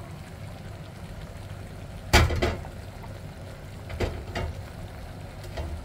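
Metal cookware knocking against a large stovetop pot: one sharp clank about two seconds in that rings briefly, then two lighter knocks around four seconds, over a steady low rumble from the steaming pot on the stove.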